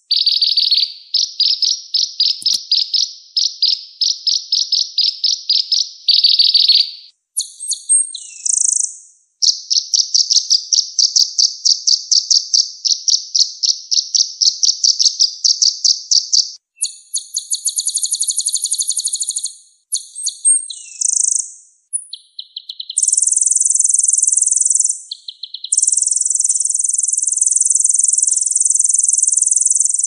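Recorded songbird song of the kind played to train caged birds: a chain of very high, fast trills, each a few seconds long, switching between several different trill types with short breaks between them.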